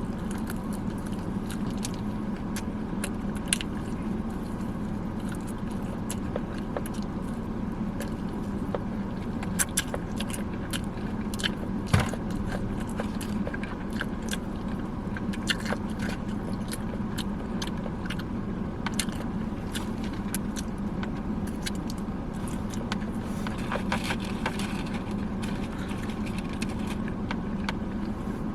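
Close-up eating sounds inside a car cabin: chewing and the handling of food and wrappers, with scattered small clicks and crackles and one sharper click about twelve seconds in. A steady low hum from the car runs underneath.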